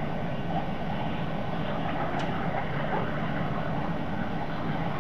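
Steady urban background rumble, such as city traffic and building machinery, picked up by a nest camera's microphone on a high-rise ledge. A faint, brief high squeak comes about two seconds in.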